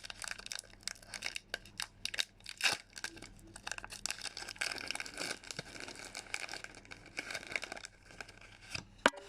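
A Rebel Clash Pokémon booster pack's foil wrapper being torn open and crinkled, with irregular crackling rustles, and one sharp snap near the end.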